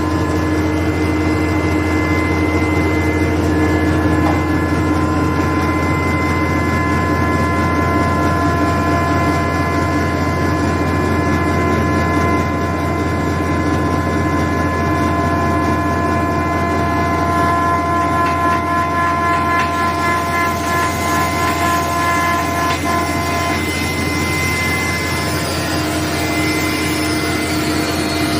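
SWLF-200 grain and leaf pulverizer running at speed: a loud, steady mechanical hum with several steady whining tones. About two-thirds of the way in the tone changes, with a wavering high whine coming in.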